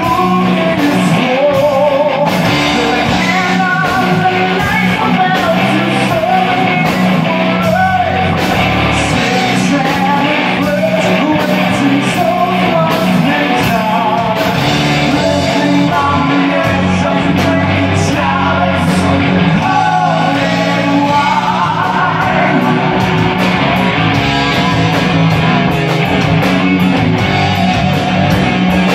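A rock band playing live: electric guitars, bass guitar and drums, with a singer's voice over them.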